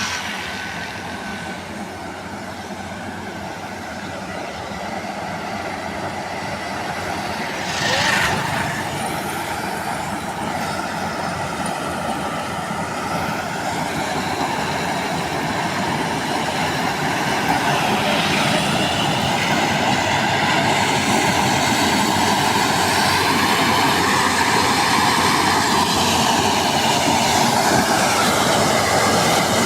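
Tracked combine harvester running under load, a steady mechanical din that grows gradually louder, with a brief swell about eight seconds in.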